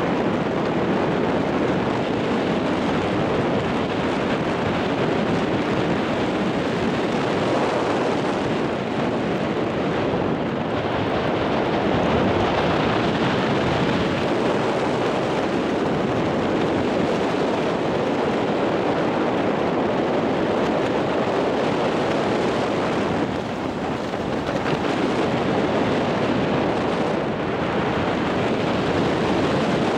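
Steady wind rushing over the camera's microphone during a tandem parachute descent, easing slightly about two-thirds of the way through.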